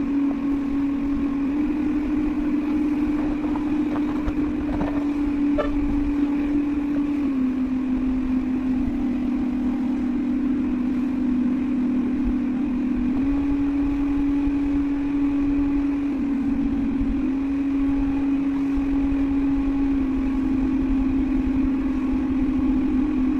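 Vacuum cleaner motor running steadily, its hum stepping up and down in pitch every few seconds as the suction load changes.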